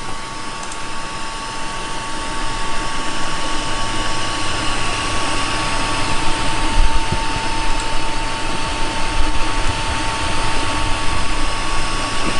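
Steady whirring machine noise with two faint steady whines, slowly growing louder, and a low hum joining about four seconds in.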